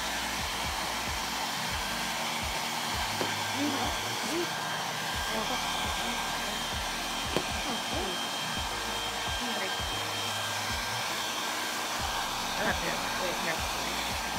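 Handheld hair dryer blowing steadily at a lace-front wig's hairline, drying the hair gel used to hold the lace down. A single brief knock comes about seven seconds in.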